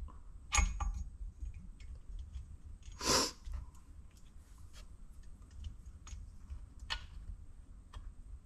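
Faint scattered clicks and scrapes of a glow plug tool being worked over the wires and fiddled onto the hex of a diesel heater glow plug, which is stubborn to engage. A short hiss comes about three seconds in.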